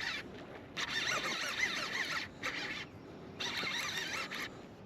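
Baitcasting fishing reel cranked in three short stretches, buzzing as line is wound in against a hooked fish.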